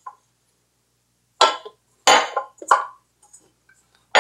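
Metal clanks and knocks from a stand mixer's stainless steel bowl and dough hook as the dough ball is worked out of the bowl: three sharp clanks in quick succession around the middle and another near the end.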